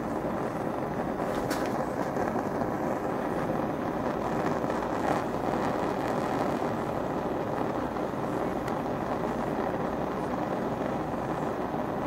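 Handheld gas torch burning with a steady rushing hiss as its blue flame heats a coolant temperature sensor clamped in a vise.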